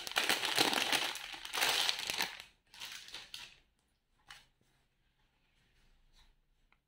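Clear plastic packaging bag crinkling as a packed clothing set is opened and a garment pulled out: dense, loud crinkling for the first two seconds or so, then a few shorter rustles, dying to faint handling noise near the end.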